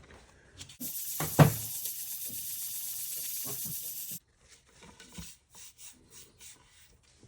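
Fine 1000-grit sandpaper rubbing back and forth over the lacquer of a drum shell for about three seconds, then stopping suddenly: sanding out scratches in the lacquer finish. A couple of light knocks come early in the sanding, and faint handling sounds follow it.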